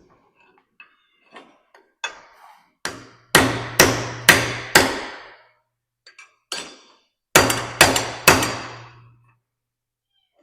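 Hammer blows on steel in two runs: a couple of light taps, then four hard ringing strikes about half a second apart; after a short pause, a light tap and three more hard strikes. Each hard blow rings out for about half a second.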